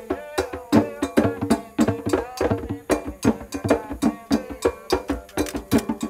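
Hand drums and other percussion played in a quick, steady rhythm, with voices singing a chant over them: ritual music of an Afro-Brazilian religion.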